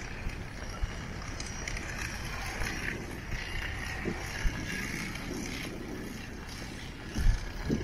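City street ambience: a steady low rumble of traffic, with a brief low thump near the end.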